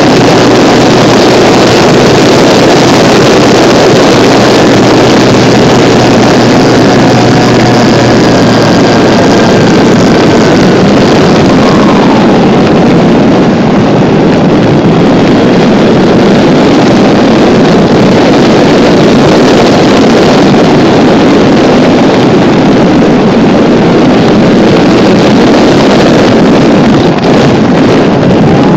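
Loud, steady rush of airflow and propeller noise on an RC aeroplane's onboard camera microphone, with the faint whine of its HeadsUpRC Brushless 480 Plus electric motor; the whine falls away about ten seconds in.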